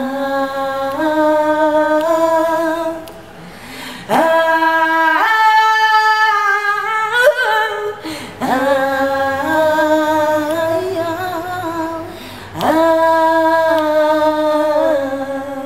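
Women's voices singing a cappella, in four long drawn-out phrases with vibrato, each held for several seconds and separated by short breaths, the last one fading out near the end.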